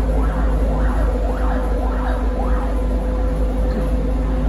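ZiU-682V trolleybus heard from the cabin while running: a steady electrical hum under a whine that keeps rising and falling a couple of times a second.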